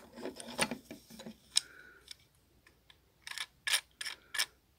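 Plastic clicks and taps from a Plarail Thomas toy engine being handled and turned over in the hands, a few scattered at first and then several sharper clicks close together near the end.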